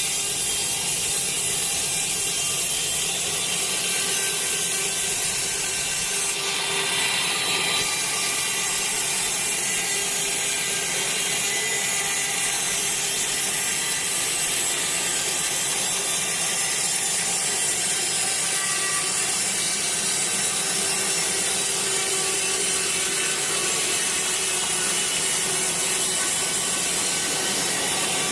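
Sawmill saw running steadily through a wet teak log, ripping it lengthwise.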